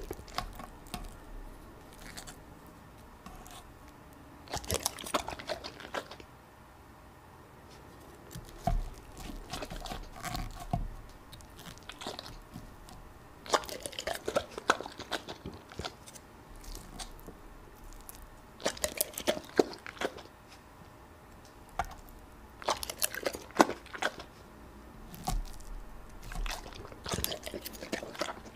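Yellow Labrador retriever chewing soft food taken from a fork: close-up wet crunching and clicking of teeth and jaws, in bursts of a second or two with short quiet pauses between.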